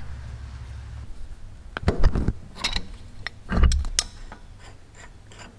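Metal clicks and clatter of a wrench being fetched and fitted to a tractor's fuel water separator, in two short clusters about two seconds and three and a half seconds in, with lighter ticks between and after. A low steady hum stops about a second in.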